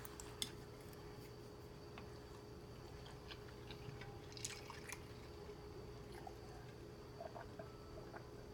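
Faint wet mouth sounds of someone eating noodles: quiet chewing with a few small clicks scattered through, over a faint steady hum.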